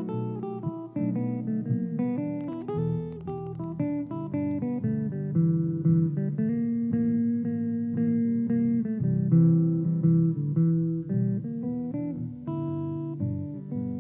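Epiphone Swingster hollow-body electric guitar played through a Peavey bass amp, picking a blues line over a looped guitar backing part.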